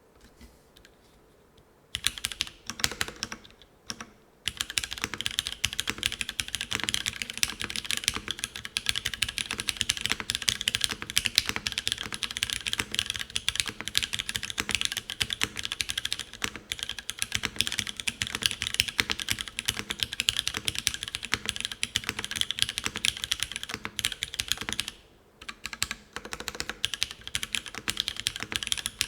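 Fast, continuous typing on a Karina 65 mechanical keyboard: Cherry HG Black linear switches in an aluminium plate, tadpole-mounted with no foam, under GMK Darling keycaps. It starts about two seconds in, pauses briefly near four seconds and again near the end, then resumes.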